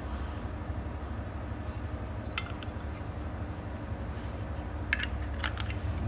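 A few sharp metallic clicks and clinks from brass Zippo lighters being handled, scattered through the second half, over a steady low hum.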